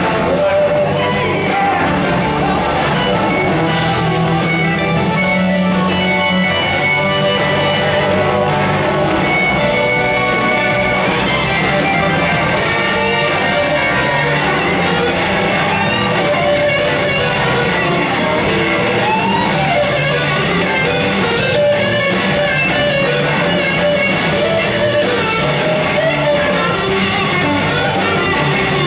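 Full blues-rock band playing live, with electric guitars, keyboards and drums, recorded from the audience in a large hall.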